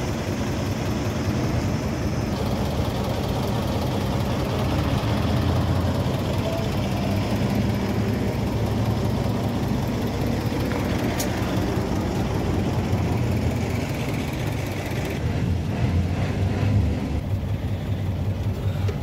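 Truck diesel engine idling steadily.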